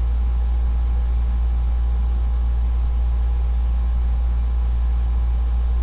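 A steady low hum, constant and unchanging, with a faint thin tone above it.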